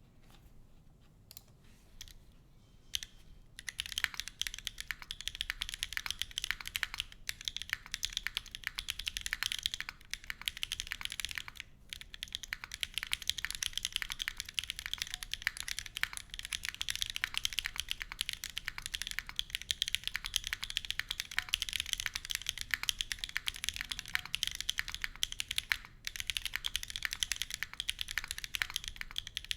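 Typing on a wilba.tech Salvation mechanical keyboard with stock KTT Strawberry v2 linear switches, an FR4 plate, TX stabilisers and GMK Striker keycaps. A few separate keystrokes first, then fast continuous typing from about three and a half seconds in, with a few brief pauses.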